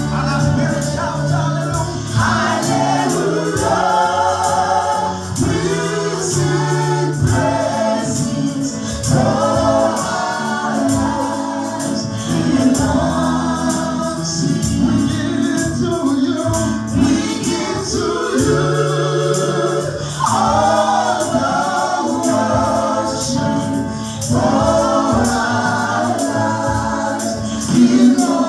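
Choir singing a gospel worship song with band accompaniment: sung phrases over a bass line and a steady beat.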